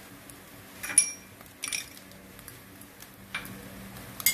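Kitchenware clinking: a sharp, briefly ringing clink about a second in, a couple of softer knocks after it, and another sharp clink near the end.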